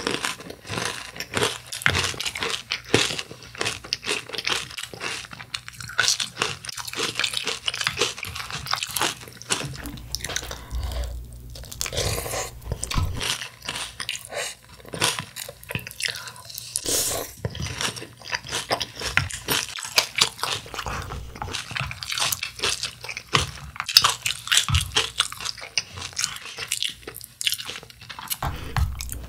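Close-miked chewing of crisp corn-flake cereal in milk: a steady run of loud crunches and crackles, with a few brief pauses between mouthfuls.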